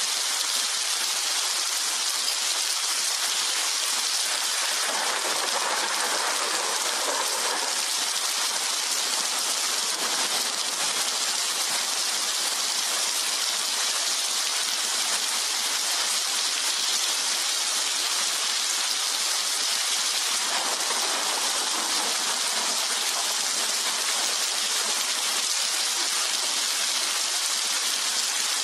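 Steady rain falling, an even hiss with no thunder, swelling a little twice.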